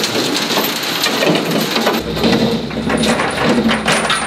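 Deck noise aboard a commercial fishing trawler: a steady rush of wind and water with many small knocks and clatters from the net and its floats being handled. A low rumble comes in about halfway through.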